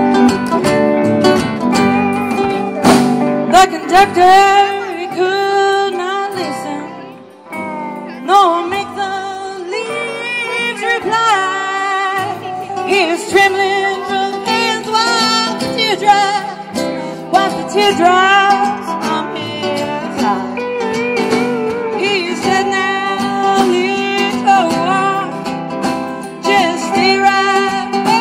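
Live band playing a country song on upright bass, electric guitar, acoustic guitar and drums, with a woman singing into the microphone near the end.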